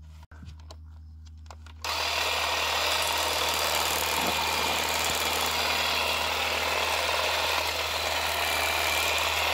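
Hyper Tough 20-volt cordless hedge trimmer switching on suddenly about two seconds in, then running steadily, its reciprocating blades cutting through thick weed and grass stems.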